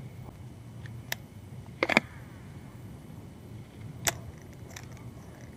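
A few sharp clicks from handling a fishing rod and reel, the loudest about two seconds in and another about four seconds in, over a faint steady low hum.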